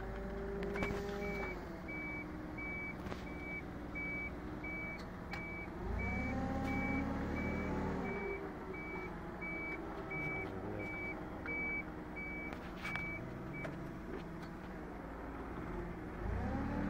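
Forklift truck's reversing alarm beeping steadily, about two beeps a second, over its running engine. The beeping stops about 13 seconds in. The engine revs up for a couple of seconds around six seconds in and again near the end.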